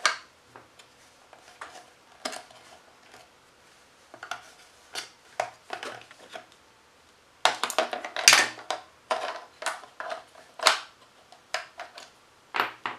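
Scattered plastic clicks and taps as batteries are pried out of a tight battery compartment in a plastic digital alarm clock with a small tool, with a denser burst of clatter about halfway through, and light knocks as the loose batteries land on the table.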